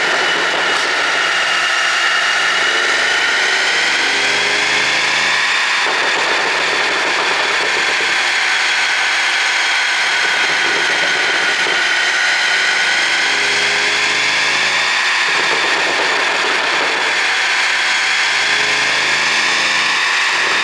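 2022 Bentley Flying Spur's engine running steadily at idle under a loud high-pitched whine that slowly wavers in pitch, with a lower hum fading in and out a few times.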